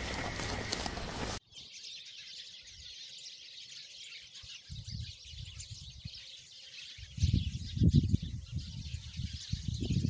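Outdoor ambience of high chirping from birds, with low gusts of wind buffeting the microphone, strongest from about seven seconds in. It opens with a louder, noisy outdoor sound that cuts off abruptly after about a second and a half.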